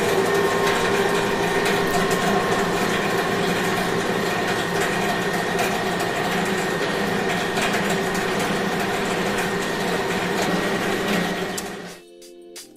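Food-processing production-line machinery running with a dense, rapid clatter and a steady whine. It cuts off sharply near the end.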